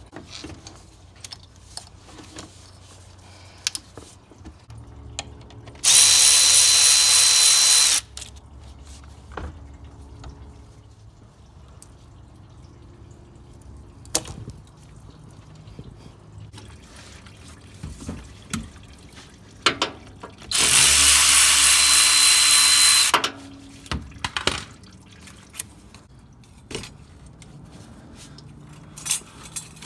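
A handheld power tool runs twice, each time for about two seconds, spinning loose the worm-drive hose clamps on the charge air pipe. Light clicks and knocks of the hose and clamps being handled come in between.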